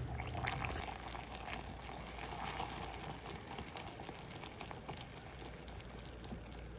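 Faint, steady crackling and sizzling with many small ticks, from hot microwaved sugar-candy syrup as grapes are dipped and coated.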